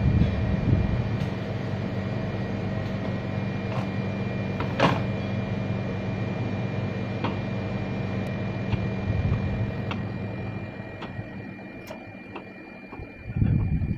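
Kitchen knife cutting cauliflower on a plastic cutting board: sharp taps every second or two, the loudest about five seconds in, and a low thump near the end. Under it runs the steady hum of an electric fan, which grows quieter in the second half.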